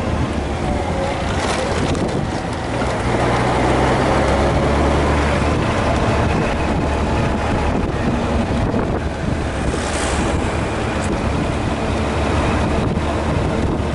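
Honda Gold Wing GL1500's flat-six engine running under way, a steady low drone with wind rushing over the microphone.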